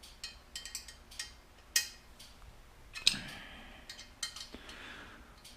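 Scattered faint metallic clicks and taps from a hex key worked on the motorcycle's bolt-on spool sliders as they are loosened. The two sharpest clicks come about two and three seconds in.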